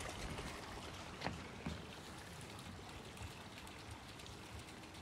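Faint steady trickle of water, with two light clicks a little over a second in.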